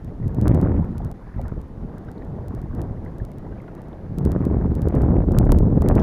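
Wind buffeting the microphone, a low rumble that surges briefly just after the start and again from about four seconds in.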